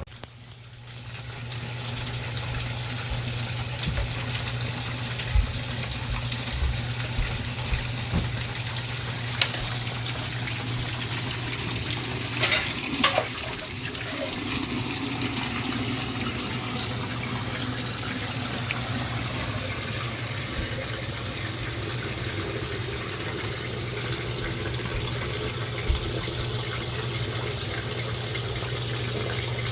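Washing machine running a wash cycle: water rushing and splashing in the drum over a steady low motor hum, with a few brief knocks.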